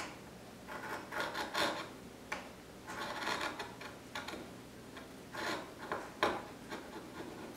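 Small V gouge pushed by hand through a hardwood board, carving shallow grooves: several short scraping cuts in bursts, as chips break away.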